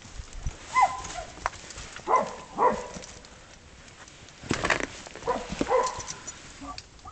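German hunting terrier barking underground at a fox in a rock den, in short irregular bursts of barks that come up out of the rocks. A brief rustle is heard about halfway through.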